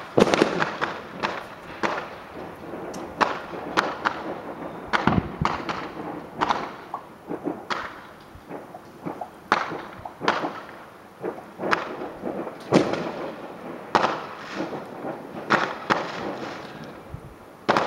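Fireworks banging irregularly, a run of sharp cracks and duller thuds, sometimes two or three close together.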